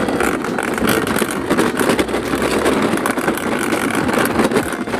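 Large plastic toy dump truck pushed along rough ground: its plastic wheels rolling and the toy trucks loaded in its bed rattling, a steady noisy clatter.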